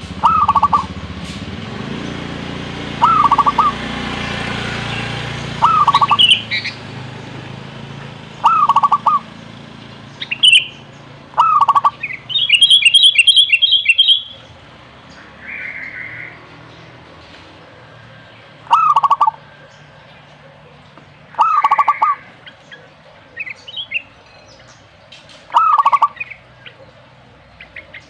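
Zebra dove (perkutut) cooing: a short staccato phrase of quick coos, repeated every few seconds with one longer pause midway. Between phrases come higher chirps and a quick trill from other birds.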